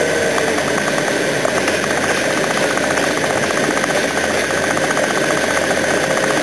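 Steady engine and running noise from a car pacing a diesel freight locomotive, with a fast, even ticking throughout.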